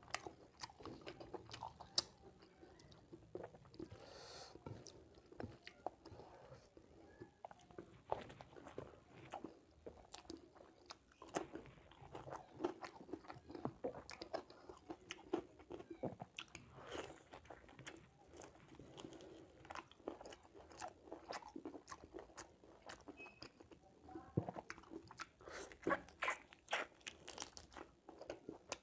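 Close-miked eating: a man chewing mouthfuls of pork curry and rice, with many short wet smacks and clicks of lips and teeth. Fingers squelch as they mix rice into the curry gravy on the plate.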